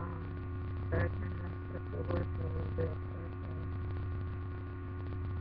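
Steady electrical mains hum made of several constant tones, with brief faint voice-like sounds about one and two seconds in.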